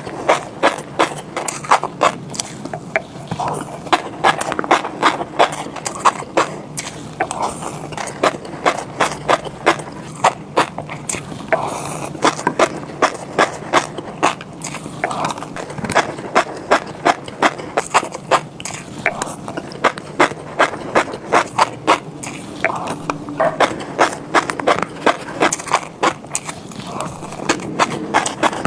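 Close-up mouth sounds of someone eating fish roe: the little eggs pop and crackle between the teeth as fast runs of sharp clicks, with wet chewing underneath.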